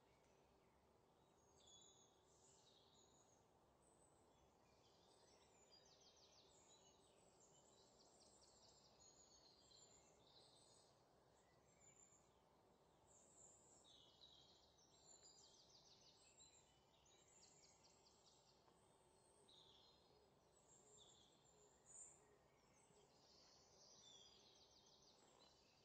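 Near silence, with faint, scattered high bird chirps and short trills.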